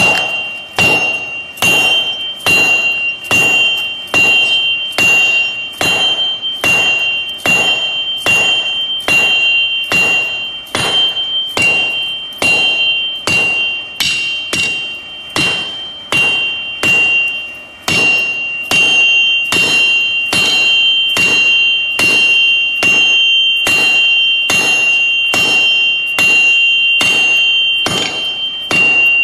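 Hammer striking a metal anvil over and over, about two blows a second, each blow leaving a high ringing tone that carries on between strikes.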